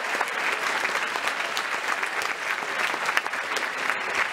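A large audience applauding steadily: many hands clapping together in a big hall, welcoming a speaker onto the stage.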